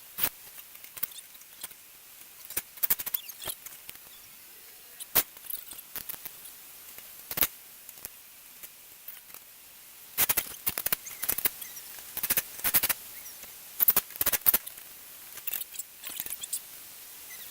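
Irregular sharp clicks and knocks of parts and tools being handled while a rooftop RV air conditioner is put back together, with quick clusters of clicks in the second half.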